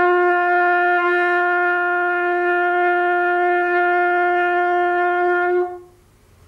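A trumpet played by a boy, holding one long steady note that stops cleanly about five and a half seconds in.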